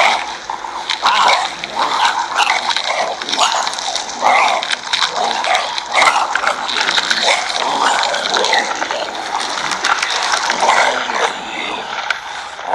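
A zombie horde sound effect: many overlapping growls and cries, one on top of another without a break.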